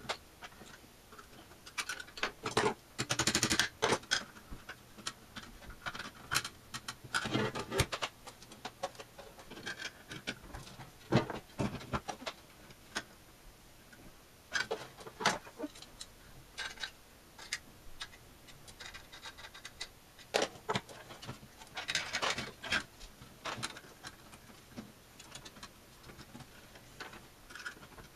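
Irregular small clicks, taps and short scrapes of metal parts and hand tools being handled while working on an old electronic test instrument's chassis, coming in scattered clusters.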